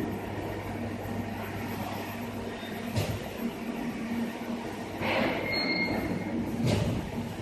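Automatic CNC welding machine running: a steady low hum over broad mechanical noise. There is a knock about three seconds in, a brief high squeal around two-thirds through, and another knock near the end.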